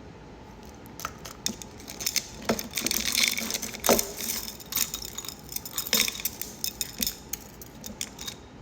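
Metal watches and watch bracelets clinking and jangling together as they are rummaged through and handled. A quick run of clinks comes in the middle.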